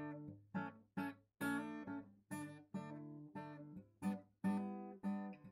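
Background music of a strummed acoustic guitar, a chord struck about every half second, each one ringing and fading. The music cuts off suddenly at the very end.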